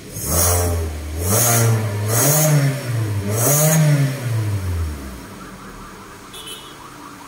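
Hyundai Elantra engine, running on a newly replaced crankshaft position sensor, revved up in two rising blips and then dropping back to idle about five seconds in.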